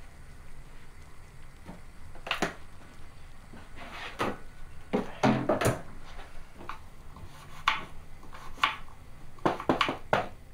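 Scattered clicks and knocks of kitchen work at a counter. Near the end come a few quick raps on a door.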